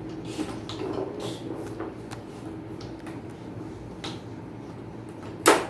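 Tabletop foosball game in play: metal rods sliding and rattling through the wooden box, plastic players clacking against the ball in scattered short knocks. One sharp, much louder knock near the end.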